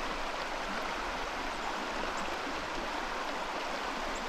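Steady rushing of a flowing trout stream.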